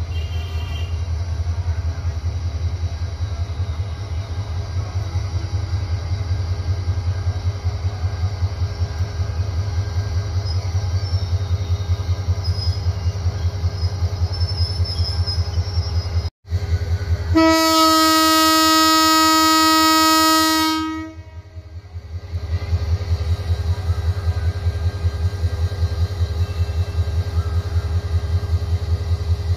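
Diesel locomotive running with a low, steady pulsing throb as the train approaches slowly, with one long single-note horn blast of about three and a half seconds some 17 seconds in.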